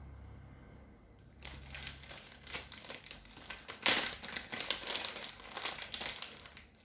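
Irregular crinkling and clicking of plastic being handled, starting about a second and a half in and loudest around the middle.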